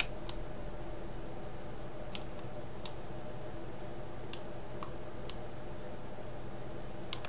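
About half a dozen scattered, single clicks of a computer mouse and keyboard, irregularly spaced, over a steady low hum.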